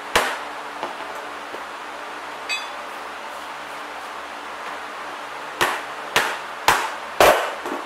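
A go-kart slick mounted on its rim slammed down onto a concrete floor: one hard thud at the start, then four more about half a second apart near the end, bouncing the soaped beads out against the rim before inflation.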